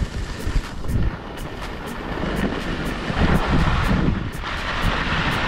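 Wind rumbling across the microphone, with a rushing hiss that grows louder about two seconds in.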